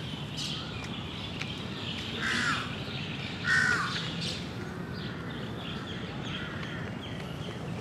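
A crow cawing twice, about two and three and a half seconds in, with fainter bird calls around it over a steady low background rumble.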